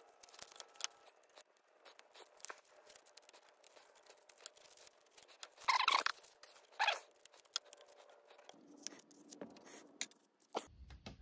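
Masking tape being peeled off a painted plastic model airplane: light crackling and rustling, with two louder peels about six and seven seconds in.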